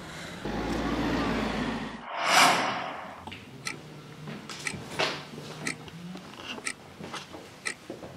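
A rushing noise that swells into a loud whoosh about two seconds in, then a clock ticking steadily, once a second.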